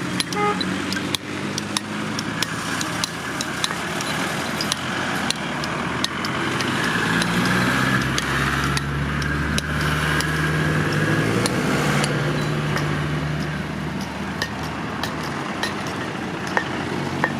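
A motor engine running with a steady hum that shifts in pitch and grows louder around the middle, with many sharp clicks and knocks scattered throughout.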